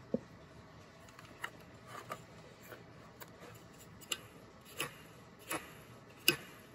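Irregular clicks and light knocks of a disassembled shop vac's motor housing being handled and turned over by hand, about eight in all. A sharp knock comes at the start and the loudest one near the end.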